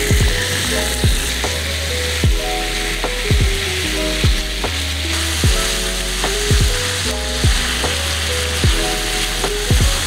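Marinated lamb rib meat sizzling as it lands in a hot frying pan and keeps frying, with tongs turning it. Background music with a steady beat plays over it.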